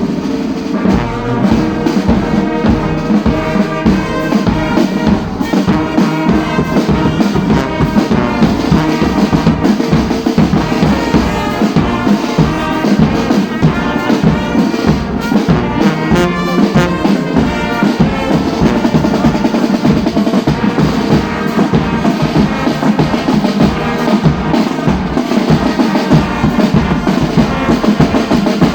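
A brass band with trumpets and trombones playing over drums that beat a steady rhythm.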